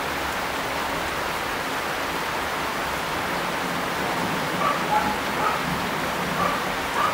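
Heavy rain falling steadily, an even hiss. In the second half, several short, sharp sounds rise above the rain.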